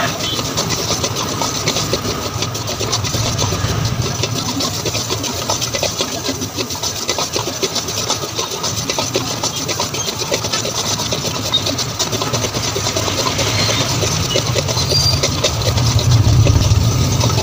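A long metal spatula stirring and scraping a thick halwa mixture against a heavy iron kadhai, in irregular strokes over a steady low rumble that grows louder near the end.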